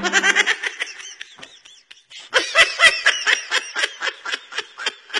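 Laughter: a run of quick 'ha' pulses that dips briefly, comes back louder a little past two seconds in, then fades out.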